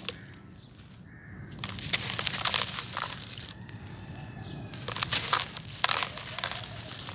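Dry, gritty charcoal crumbles being crushed and crumbled by hand, the grains and dust pattering down onto a wet, packed mass. The sound comes as two spells of dense crunching and crackling, with a quieter pause between them.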